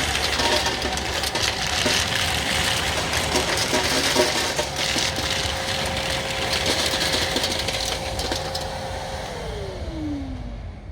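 Nilfisk Multi II wet and dry vacuum cleaner running with a steady motor whine and rushing air. In the last couple of seconds it is switched off, and the whine falls in pitch as the motor spins down.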